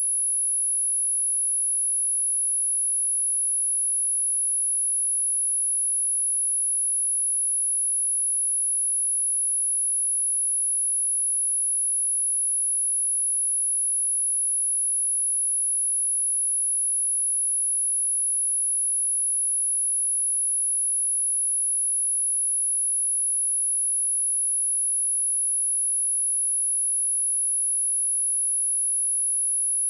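A pure 10547 Hz sine-wave test tone, a single steady high-pitched whistle held at constant level, played as a speaker test and speaker-cleaning tone.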